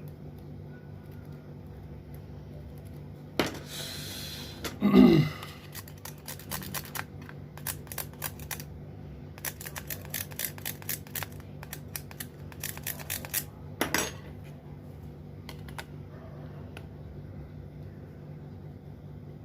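Clicks, taps and light rattles of a mobile phone and its battery being handled on a repair bench as the battery is fitted, with a louder thump about five seconds in and a steady low hum underneath.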